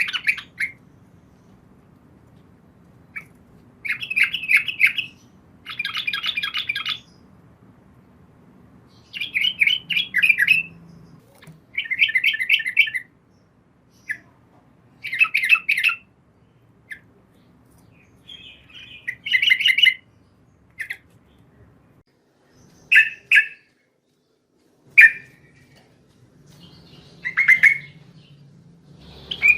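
Sooty-headed bulbul (trucukan) singing: a series of short phrases of about a second each, separated by pauses. Each phrase is a fast chattering run of notes, with a few single short notes in between.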